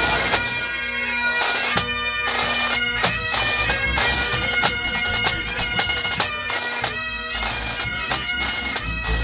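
Great Highland bagpipes played by several pipers together: steady drones held under a bright, ornamented melody.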